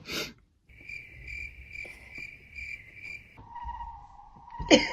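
A person sneezes sharply near the end, set off by a nasal swab. Before that, a high steady tone pulses about two and a half times a second, then gives way to a lower steady tone that carries on under the sneeze.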